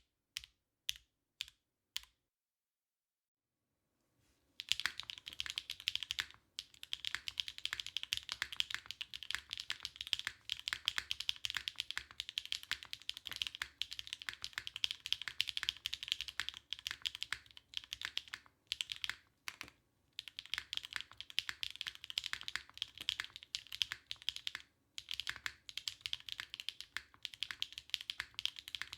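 Custom mechanical keyboard being typed on: a TKD Cycle7 with an aluminium plate on gasket strips, stock HMX Deep Navy switches and OG Cherry doubleshot keycaps. A few single keystrokes, a pause of about two seconds, then fast continuous typing broken by a few short stops.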